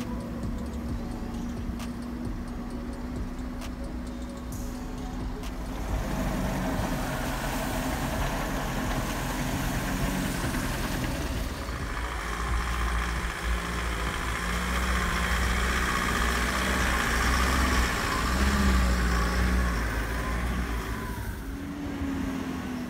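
Off-road 4x4's engine running steadily, then louder and working harder with a wavering pitch from about six seconds in, easing off near the end.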